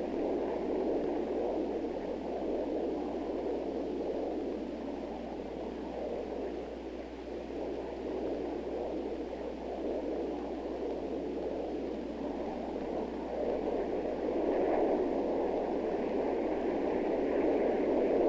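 Steady hiss from an open radio link, with a low hum underneath, growing slightly louder near the end.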